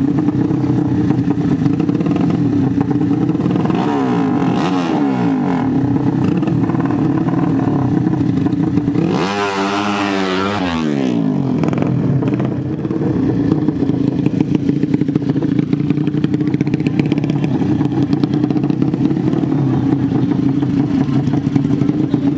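150 cc horizontal-cylinder ('sleep engine') drag bike engines idling loud and steady at the start line. A quick rev drops away about four seconds in, and a bigger rev climbs and falls back around ten seconds in.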